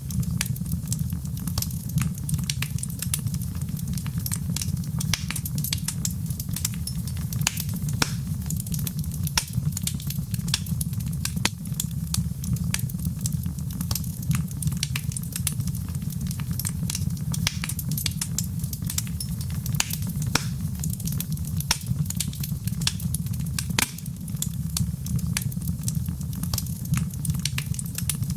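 Wood fire in a fireplace crackling: many irregular sharp pops and snaps over a steady low rumble of the flames.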